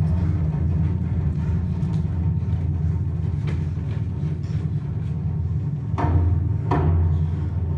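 A low, steady rumbling drone played as a stage sound effect, with two sharp, louder hits near the end.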